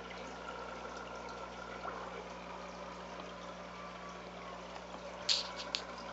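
Aquarium filter and pump running: a steady watery hiss with a low hum. Two brief sharp sounds come near the end.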